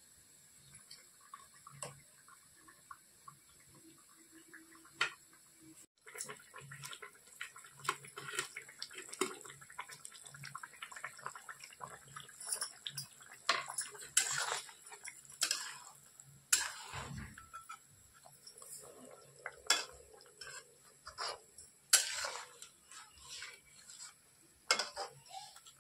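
Metal kitchen utensils clinking and scraping against pots and pans in irregular knocks, few at first and frequent from about six seconds in.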